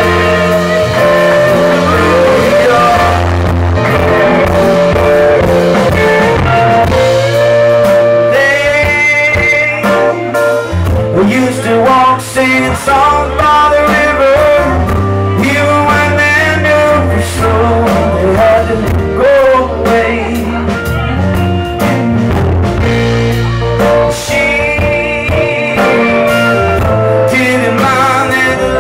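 Live rock band playing a song: a male lead vocal over acoustic guitar, electric guitar, bass guitar, keyboard and drums.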